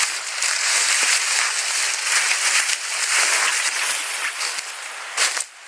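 Loud, close, irregular rustling and crackling in uneven surges, with a brief drop near the end.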